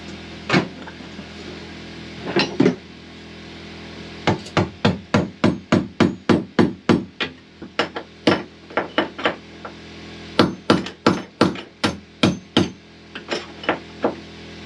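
Hammer blows on a steel punch, driving at a stuck, plugged skin fitting in a wooden boat's hull: a couple of single strikes, then runs of rapid blows about two to three a second, with a short pause in the middle.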